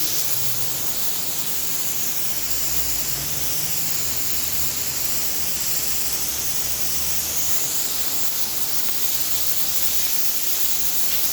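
Pressure washer spraying a steady stream of water onto the ground, a continuous even hiss.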